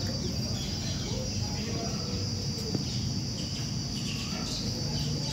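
Steady high-pitched insect drone over a low rumble, with faint voices in the background.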